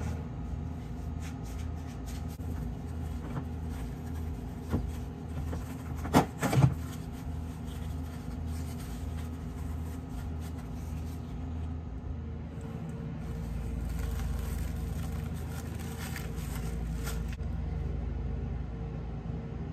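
Steady low machine hum, a little louder in the second half, with a few short knocks around five and six to seven seconds in.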